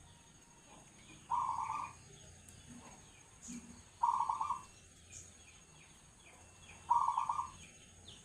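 Zebra dove (perkutut) cooing: three short rolling coo phrases about three seconds apart, with faint chirping from other small birds between them.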